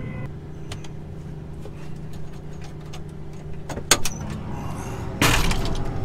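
John Deere combine running steadily, heard from inside the cab, with a few light clicks and a sharp click about four seconds in. Near the end the cab door opens and a loud rush of engine and outside noise comes in.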